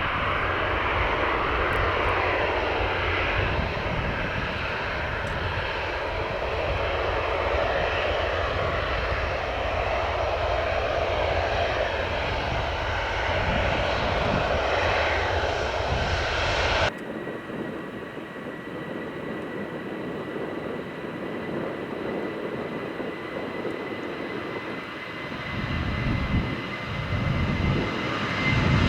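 Jet airliner engines running loud, with a strong low rumble. An abrupt cut about two-thirds of the way through gives way to quieter engine noise with a steady high whine, and the low rumble builds again near the end.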